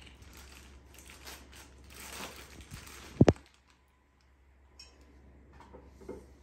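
Light handling noises, with rustling and small clicks, as a liquor bottle has its cap off and a thin tube is pushed down into it. There is one loud, low thump about three seconds in.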